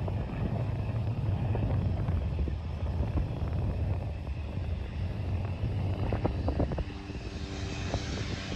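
Aircraft engine noise with a continuous low rumble. From about seven seconds in, a steady engine drone with a clear pitch joins in.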